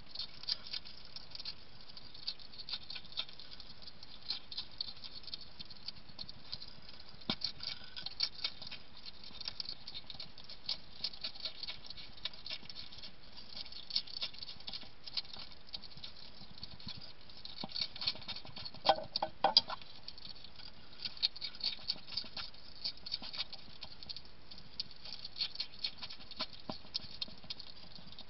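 Wild European hedgehog chewing dry kitten biscuits from a dish: a steady run of quick, sharp crunching clicks, with a louder, denser patch about two-thirds of the way through.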